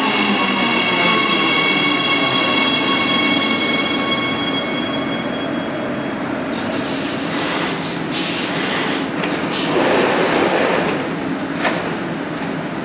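Siemens Inspiro metro train braking to a stop: the traction drive's high multi-tone whine settles and fades out about five seconds in as the train comes to a stand. It is followed by a run of short hisses and clicks from the standing train.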